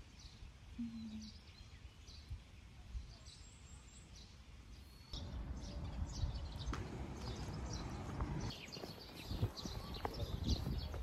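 Small birds chirping in quick repeated notes over a steady outdoor background hum, which gets louder about five seconds in.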